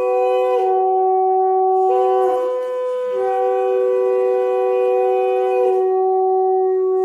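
Shehnai music: a reedy wind instrument playing long held notes that step up and down over a steady drone, the music customary at Bengali weddings.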